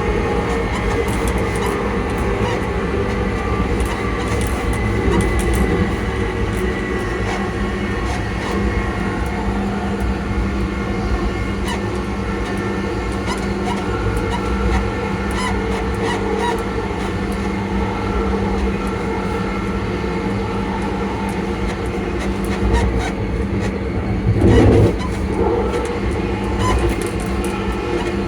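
ScotRail Class 334 electric multiple unit running, its traction motors giving a steady whine of several held tones over the low rumble of the wheels on the rails. A brief louder thump comes about 24 seconds in.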